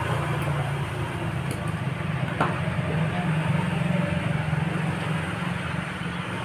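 Steady low mechanical rumble, like an engine running nearby, under a light hiss, with one sharp click about two and a half seconds in.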